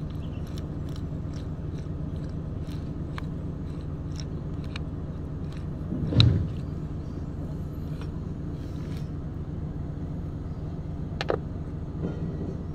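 An engine running steadily in the background, a low even hum, with light metal clicks from the hydraulic pilot pump housing being handled, and a louder knock about six seconds in.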